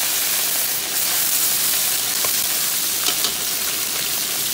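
Small whole stream fish frying in hot oil in a metal wok: a steady sizzling hiss, with a few light clicks near the middle.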